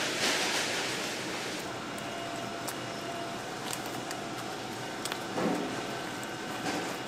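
Steady room noise of a food factory, ventilation and machinery running, with a brighter hiss over the first second and a half and a few light clicks and clatters scattered through.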